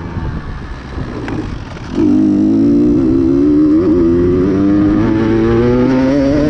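KTM XC-W dirt bike engine racing off-road: off the throttle for about two seconds, then the throttle snaps open and the revs climb steadily under load.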